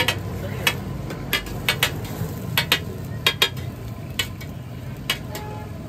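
Metal spatula clinking and tapping against a flat steel griddle, about a dozen sharp clanks at irregular intervals, over a steady low rumble.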